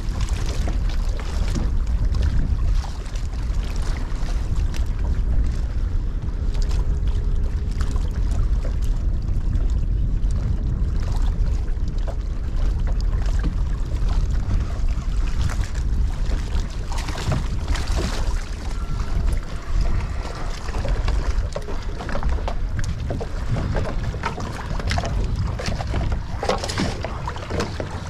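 Wind buffeting the microphone over water lapping against a small skiff's hull, with scattered knocks and clicks.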